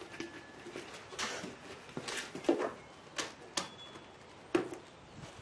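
Plastic soda bottle being handled and its capped neck pushed into a hole in a PVC pipe: a handful of light plastic taps and crinkly clicks, spread out and separate.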